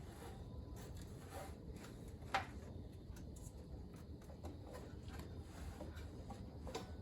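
Faint scraping and tapping of hand tools at work, with one sharp click about two and a half seconds in.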